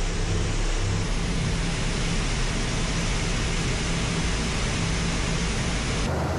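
Steady engine and airflow noise inside the cockpit of a Su-34 bomber in flight, a hiss spread across all pitches over a low rumble. The noise changes abruptly near the end.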